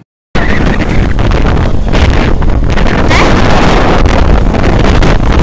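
Loud wind buffeting the microphone of a camera riding along a road at speed, a steady rumbling hiss that starts abruptly after a split second of silence.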